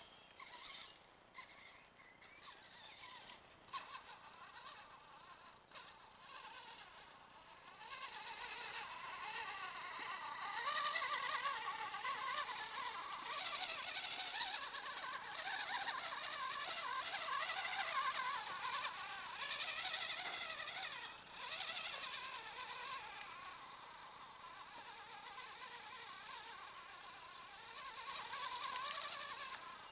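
Traxxas Mini Summit RC truck's electric motor and drivetrain whining as it climbs a dirt slope, the pitch wavering up and down with the throttle. Faint for the first several seconds, then louder from about eight seconds in.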